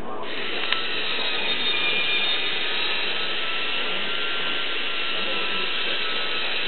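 Motorised K'Nex scrambler ride model running: a steady whirring whine of the motor and plastic gears, starting just after the beginning.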